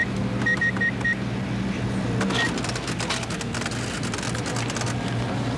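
Electronic keypad beeping as keys are pressed, about five quick short beeps in the first second and one more about two and a half seconds in, then a stretch of clicking and rattling, over a steady low electrical hum.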